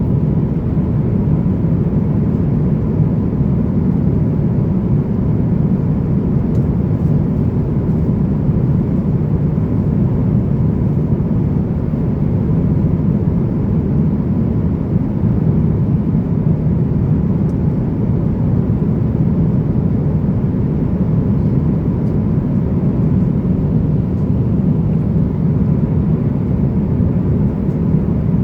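Steady cabin noise inside an Airbus A350-900 in flight: a constant low rush of airflow and engine drone, with a faint steady tone above it.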